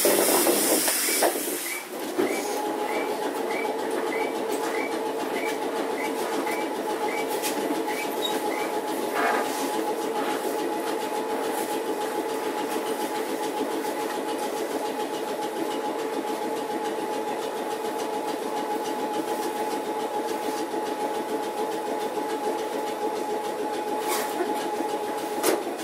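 Randen Mobo 21 retro tram heard from on board. It opens with a loud burst of hiss, then a row of short high chirps about twice a second for several seconds. Under these a steady two-note mechanical hum starts a couple of seconds in and cuts off suddenly near the end.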